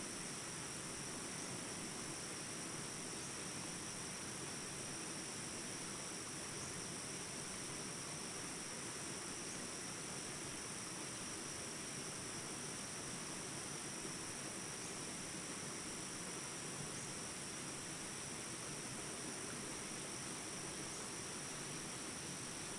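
Jungle ambience recording: a steady high chorus of insects over the even rush of small rapids.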